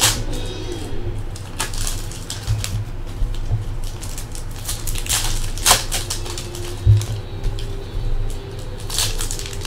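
Trading cards and their plastic sleeves being handled and shuffled on a tabletop: irregular swishes, slides and light clicks, over a low steady hum.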